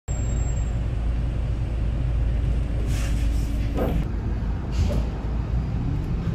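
City bus running, heard from inside the passenger cabin: a steady low engine and road rumble, with short hisses about three and five seconds in.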